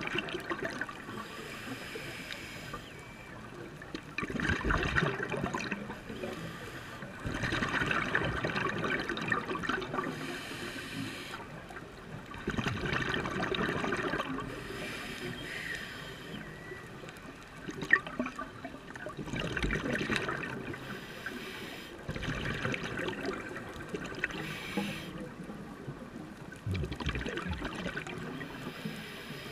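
Scuba diver breathing through a regulator underwater: a rush of exhaled bubbles every three to five seconds, with a short hiss of air on each inhale between them.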